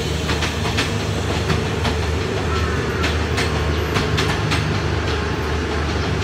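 Passenger train rolling along the track, its wheels clicking irregularly over rail joints over a steady low rumble.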